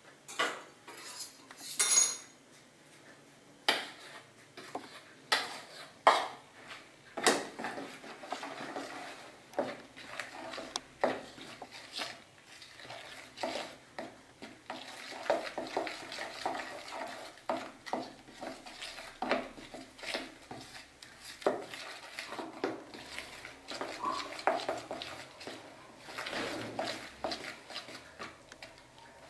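A metal utensil stirring flour into a thick batter in a plastic mixing bowl, with repeated knocks and clinks against the bowl and a scraping rustle between them. There are a few sharper metallic knocks in the first couple of seconds as flour is tipped in from a metal bowl.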